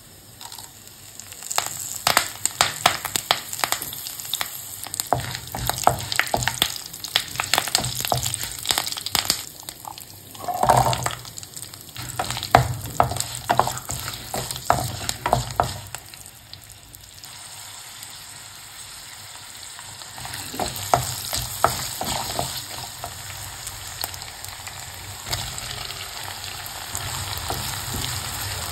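Curry leaves, whole spices and small onions frying in hot oil in a nonstick pan, stirred with a wooden spatula. Sharp crackling and clacking through the first half or so gives way to a steadier sizzle.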